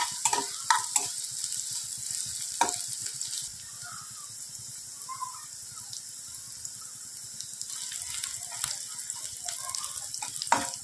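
Sliced onions and chillies sizzling in hot oil in a nonstick kadai, frying until they turn reddish. A spatula scrapes and taps against the pan a few times near the start and again near the end as they are stirred. The sizzle is louder for the first few seconds, then settles lower.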